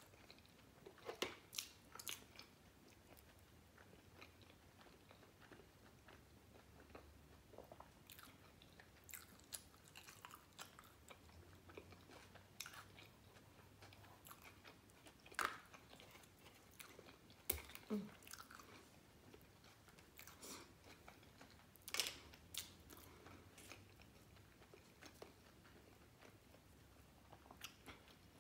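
A person eating close to the microphone: faint chewing with scattered soft crunches and mouth clicks, a few sharper bites standing out.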